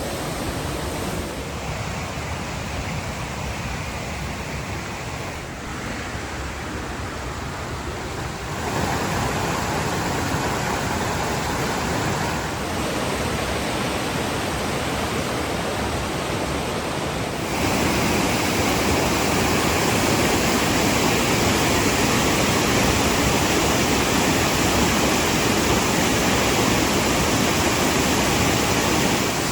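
Waterfall rushing: a steady, loud roar of falling water that grows louder in sudden steps, about a third of the way in and again past the middle.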